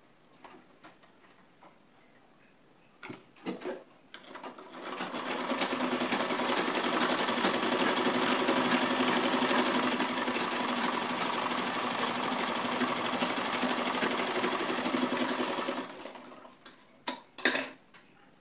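Black domestic sewing machine stitching a seam through fabric, running at a steady rapid pace for about eleven seconds with a fast even ticking of the needle mechanism. It speeds up at the start and winds down at the end, with a few short clicks before it starts and after it stops.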